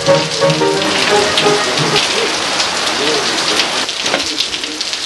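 Heavy downpour pelting the street and pavement: a steady, loud hiss of rain with dense spattering drops.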